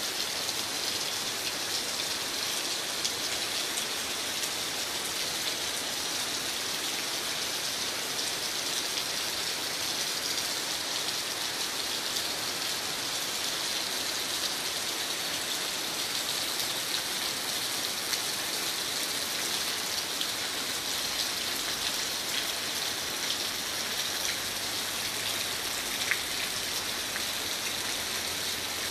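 Steady rain falling on broad, glossy anthurium leaves: a continuous hiss dotted with many small drop ticks, with one sharper tap near the end.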